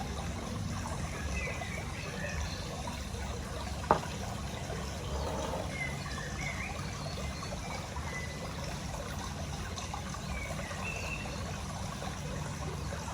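Steady low background hum with faint short chirps scattered through it, and a single sharp click about four seconds in.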